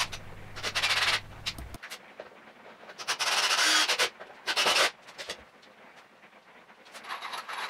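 Fast-forwarded bench-work handling noise: a few separate bursts of scraping and rubbing as wooden rails and leg frames are moved about on a workbench. The longest burst, about a second, comes near the middle.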